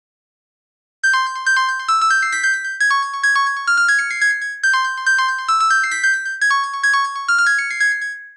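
LG AX145 mobile phone ringtone playing a synthesized keyboard melody. It starts about a second in, repeats a short high-pitched phrase four times, and stops near the end.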